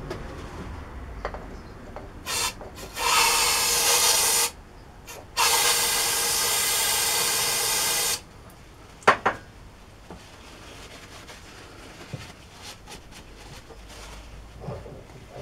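Harsh, steady rasping of a tool working metal, in three bursts: a short one, one of about a second and a half, and one of nearly three seconds. Each starts and stops abruptly. A couple of sharp clicks follow about a second after the last burst.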